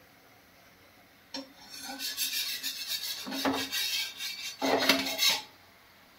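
A utensil scraping a cooking pot: after a short click a second or so in, a run of rasping scrapes that is loudest near the end and then stops.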